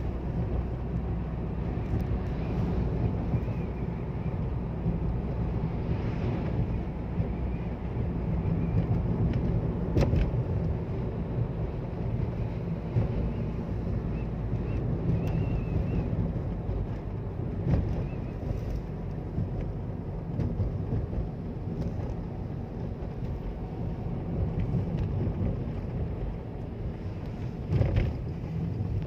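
Cabin of a car driving through a sandstorm: a steady low rumble of road and engine with wind noise. A few sharp knocks come through about ten, eighteen and twenty-eight seconds in.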